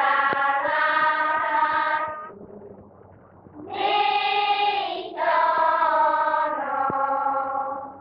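Voices singing or chanting together in long held notes that step from pitch to pitch. They break off about two seconds in and resume after a pause of about a second and a half.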